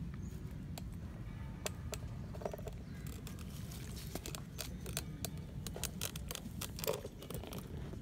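Close-up rustling and crackling: scattered sharp clicks, thickest in the second half, over a steady low rumble.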